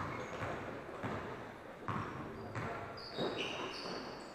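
A basketball being dribbled on an indoor gym court, bouncing about once every second or less, with short high sneaker squeaks on the floor near the end.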